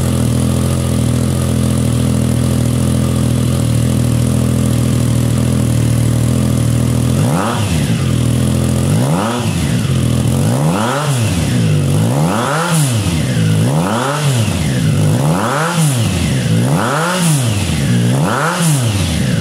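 Triumph Tiger Sport 660's inline three-cylinder engine breathing through a GPR low-position exhaust, idling steadily for about seven seconds. It is then revved in a series of about eight quick throttle blips, roughly one every second and a half, each rising and falling back.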